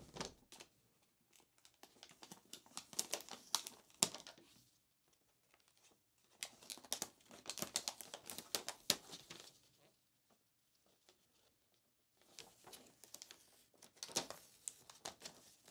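Thick parchment-like paper wrapping crinkling as it is peeled and unfolded from around a laptop, in three spells of a few seconds each with quiet gaps between.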